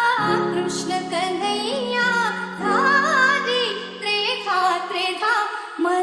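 A woman singing a Marathi song about Krishna in long, ornamented notes over held instrumental chords that change step by step.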